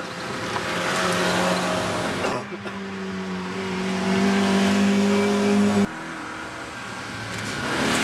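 Classic rally cars driven hard on a gravel stage, one after another, each engine held at high revs with a steady pitch. The sound changes abruptly from one car to the next twice, about two and a half and six seconds in.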